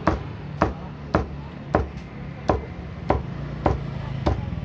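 Heavy knife chopping a whole fish into chunks on a thick round wooden chopping block: eight sharp chops at an even pace, about every half second or so. A steady low hum runs underneath.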